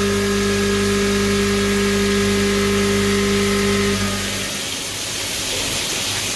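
CNC milling machine cutting soft vise jaws: a steady spindle whine over a constant hiss. The whine stops about four seconds in, leaving the hiss.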